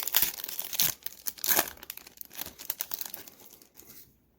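Trading card pack wrapper being torn open and crinkled in the hands. The crinkling is loudest in the first two seconds and dies away near the end.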